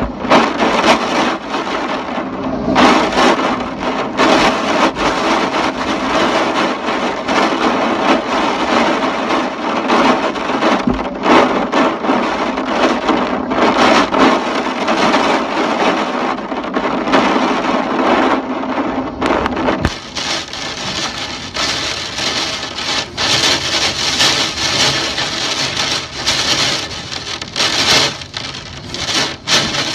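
Typhoon wind and rain: a loud, rushing storm noise full of gusts, with many sharp knocks and cracks. The rain hiss grows heavier from about two-thirds of the way in.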